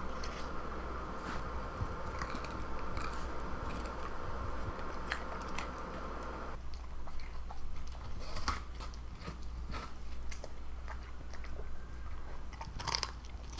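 A corgi crunching and chewing raw carrot and apple: a run of short, crisp bites, with the sharpest crunches in the second half.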